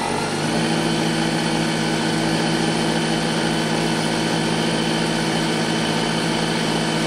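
Industrial straight-stitch sewing machine running steadily to wind thread onto the bobbin, a loud, even whir that rises briefly in pitch as it comes up to speed at the start.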